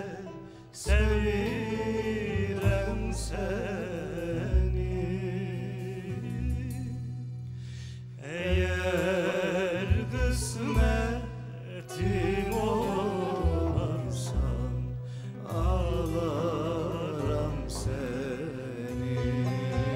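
Live folk ensemble playing an instrumental passage of a Turkish-Azerbaijani folk song: ney flute and tar carry a melody with wavering pitch over guitar, tanbur and a stepping double-bass line. The music drops briefly just after the start and again about eight seconds in before picking up.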